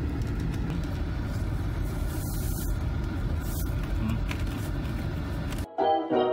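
Steady low rumble of road and engine noise inside a moving car's cabin. About five and a half seconds in it cuts off suddenly and keyboard background music begins.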